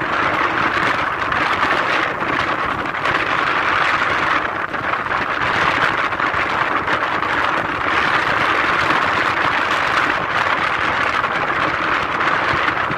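Strong wind blowing across the phone's microphone: a loud rushing that swells and eases.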